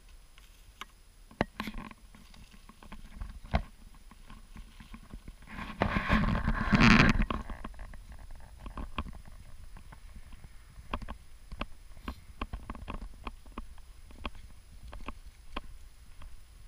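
Footsteps on a lightly snow-covered sidewalk, a string of irregular sharp scuffs and clicks at about walking pace. About six seconds in, a louder rushing, rustling noise lasts about a second and a half.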